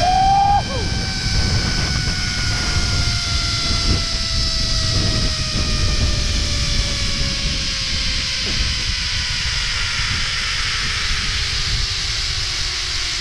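Zip-line trolley pulleys running along the steel cable, a whine that falls slowly in pitch throughout, over a low rumble of wind on the microphone. A short rising-and-falling tone sounds right at the start.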